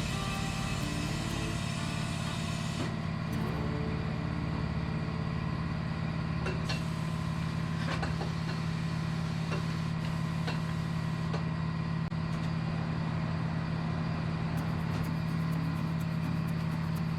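A machine running with a steady hum, with a few light clicks and taps over it.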